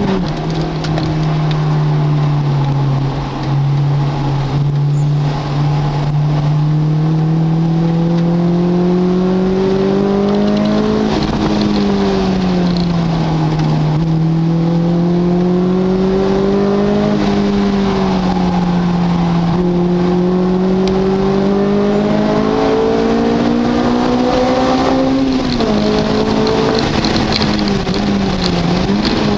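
Car engine under hard driving on a race track. Its pitch climbs slowly for several seconds at a time, then drops back, about four times over.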